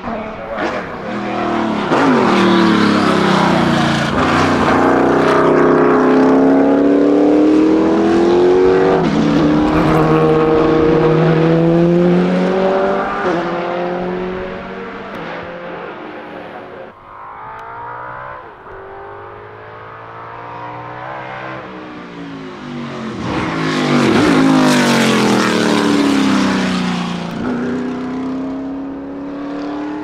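Racing car engine accelerating hard through the gears as a car passes close, the pitch climbing and dropping at each shift before it fades into the distance. A second loud pass comes about 23 seconds in, its pitch falling as it goes by.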